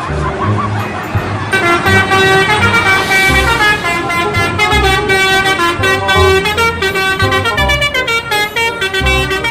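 Bus telolet horn: a set of bus air horns playing a quick tune of changing tones, starting about a second and a half in, with low thumps underneath.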